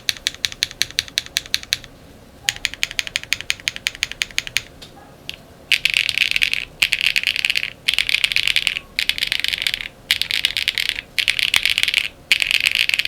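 Typing on a gasket-mounted Space82 mechanical keyboard with an FR4 plate, HMX Emo switches and PBT keycaps: two runs of quick single keystrokes, then from about halfway, bursts of very fast, dense typing about a second long with short pauses between them.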